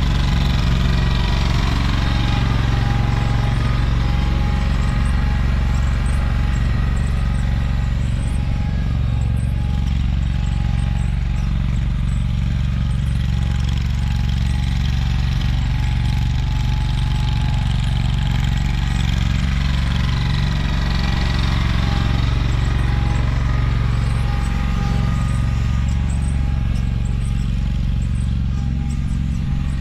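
AGCO Allis garden tractor's engine running at a steady speed while the tractor drives along, towing a fertilizer cart.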